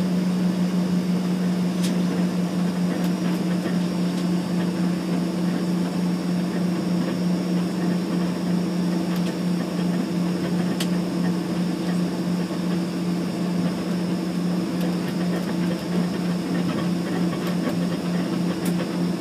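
Small airliner's engines running steadily while it taxis, heard from inside the passenger cabin as an even drone with a low hum and a hiss.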